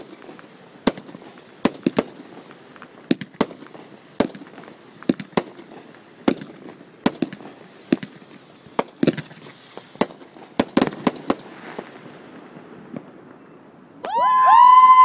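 Fireworks shells bursting overhead in a rapid, irregular series of sharp bangs, thinning out after about eleven seconds. About a second before the end a loud, steady, shrill tone cuts in over everything.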